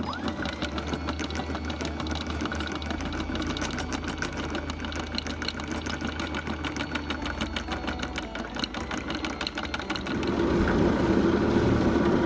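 Electric anchor windlass hauling in chain: the motor hums while the chain links click over the gypsy in a fast, even rhythm. About ten seconds in this gives way to the yacht's engine running, louder and lower.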